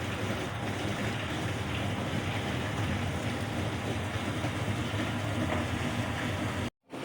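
Steady rush of water being sprayed or poured onto plants during watering. It cuts off abruptly for a moment near the end.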